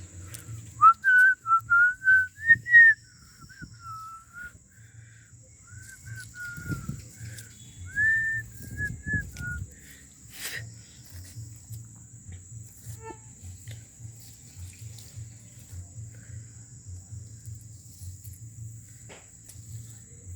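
A person whistling a short tune: a burst of loud, sliding notes in the first few seconds, then softer broken notes that stop about halfway through. A steady high insect trill runs underneath, and there is a single click near the middle.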